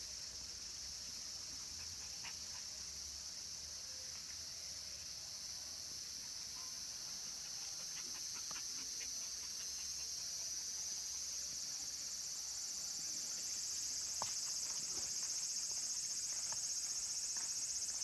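Cicadas calling in a steady, high-pitched chorus from the surrounding trees, growing louder toward the end.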